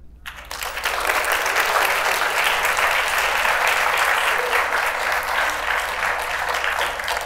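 An audience applauding, building to full within about a second and then holding steady.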